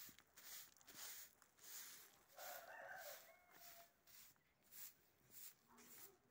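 Faint footsteps on a dirt road, about two steps a second. A rooster crows once in the distance about two and a half seconds in.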